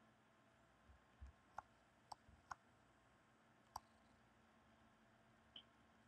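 Near silence, with about five faint, sharp computer mouse clicks scattered through the first four seconds and a couple of soft low thumps.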